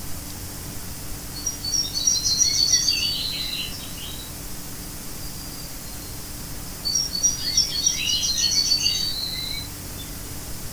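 A songbird singing two song phrases, each about two to three seconds long and a few seconds apart, over a steady background hiss.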